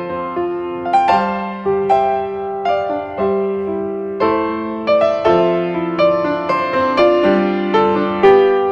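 Background music: a gentle piano tune with notes struck about once or twice a second.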